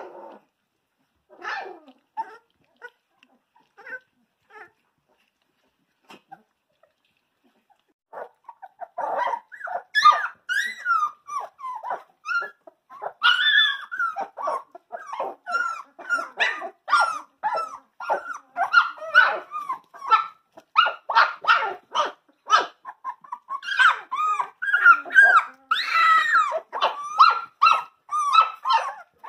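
A litter of 19-day-old Dalmatian puppies whining and yipping as they play together. A few scattered calls at first, then from about eight seconds in an almost unbroken run of short, overlapping calls from several puppies.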